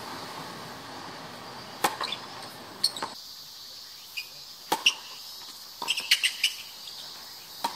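Tennis balls struck by rackets and bouncing on a hard court in doubles play: single sharp pops a second or so apart, then a quicker cluster of hits and bounces in the rally after the serve. A steady high insect drone runs underneath.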